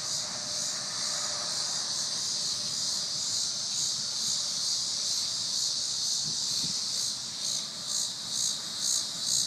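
Chorus of cicadas in the trees: a steady, high-pitched buzzing that begins to pulse, swelling two or three times a second, near the end.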